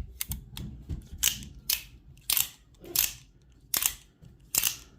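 Out-the-front automatic knives firing and retracting their blades: a string of sharp snaps, about six loud ones spaced half a second to a second apart, with lighter clicks in the first second.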